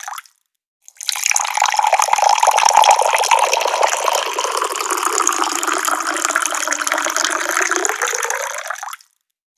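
Tap water pouring steadily in a continuous rushing stream. It stops briefly just after the start, comes back about a second in, and stops again shortly before the end.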